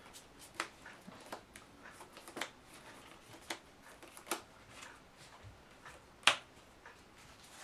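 Trading cards being handled and laid on a playmat-covered table: a scatter of light card taps and flicks, with a sharper snap a little past six seconds in.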